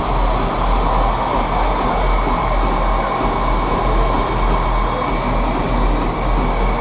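1:6-scale all-wheel-drive model truck's drivetrain running steadily: an even mechanical drone with a low hum and a thin, steady whine.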